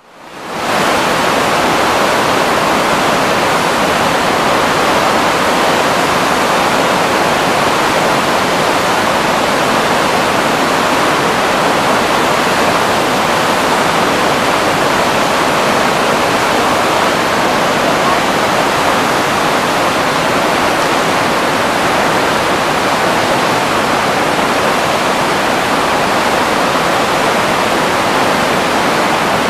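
Spokane Falls in heavy flow: a wide sheet of water pouring over a spillway crest and crashing into churning white water below, making a loud, steady rush. It fades in during the first second.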